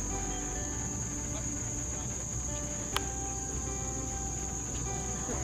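Insects trilling in one steady, high-pitched continuous note, with a single sharp click about three seconds in.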